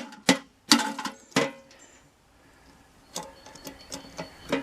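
Metal clanks and clicks from handling a small steel safe after it has been shot: several sharp knocks in the first second and a half, then a run of lighter ticks and rattles as the door is worked.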